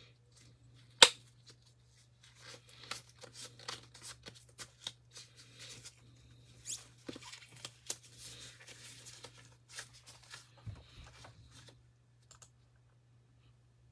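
A sharp click about a second in, then a run of short rustling, tearing and tapping noises as packaging and items are handled on a table.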